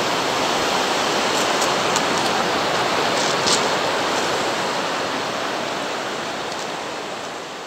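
A shallow, fast-flowing river rushing over stones and gravel rapids, a steady even rush that fades away near the end.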